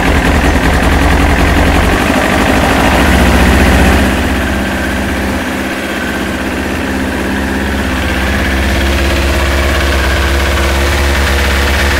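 Kawasaki ZX-9R's carburettor-fed inline-four engine idling on choke just after a cold start, its first run in a couple of months. A steady fast idle that gets a little quieter about four seconds in.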